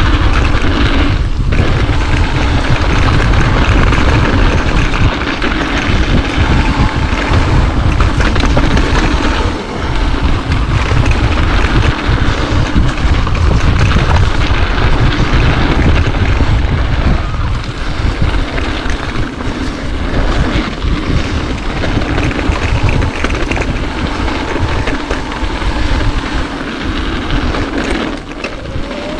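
Wind rushing over the microphone over the steady rumble of a mountain bike riding a dirt trail, with many small knocks and rattles throughout.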